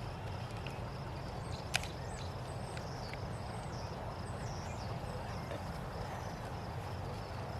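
Steady high-pitched insect chirring with scattered short bird chirps over a low steady rumble outdoors, and one sharp click about two seconds in.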